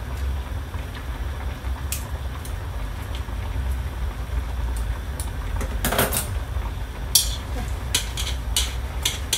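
Kitchen scissors snipping chilies, then chopsticks clinking in a steel wok, heard as scattered sharp clicks with a loud cluster past the middle and several more near the end, over a steady low hum.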